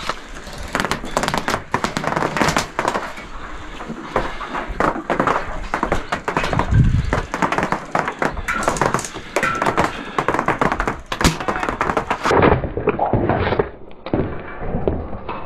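Dense, irregular clatter of knocks and thuds during a foam-dart blaster game, from gear being handled and darts and spring blasters going off around the player, turning duller about twelve seconds in.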